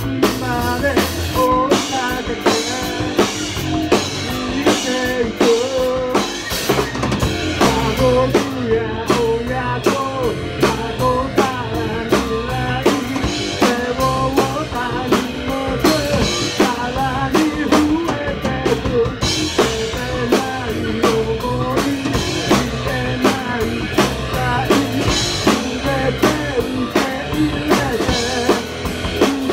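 Live rock band playing: electric guitars over a drum kit keeping a steady beat of snare and bass drum.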